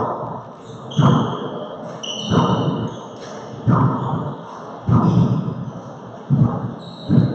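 Handball rally: the small rubber ball smacked by gloved hands and hitting the walls and hardwood floor, six sharp echoing impacts about one every 1.2 seconds. Short high sneaker squeaks on the wooden floor come between the hits.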